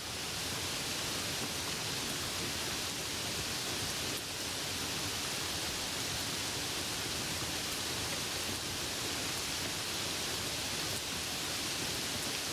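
Steady rain falling, an even hiss without distinct drops standing out or any thunder.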